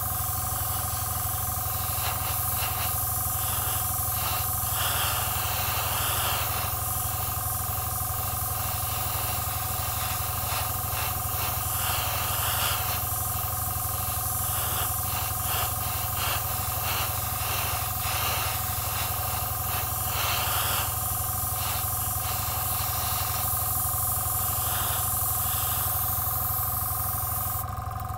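Airbrush spraying: a steady hiss of air and paint, with a steady hum beneath, breaking off briefly near the end.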